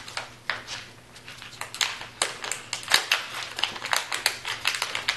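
Shiny foil packaging pouch crinkling and crackling in the hands as it is torn open and unfolded, in a dense run of irregular sharp crackles.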